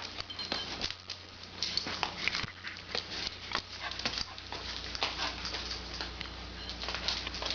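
Dogs moving about, with irregular light clicking and tapping throughout.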